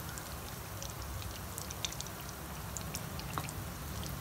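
Bread rolls deep-frying in hot oil: a steady sizzle with scattered small pops and crackles.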